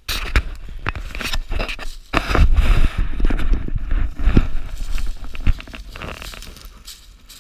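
Footsteps crunching and scraping through dry leaves and pine straw, with rustling and knocks from a handheld camera being moved about.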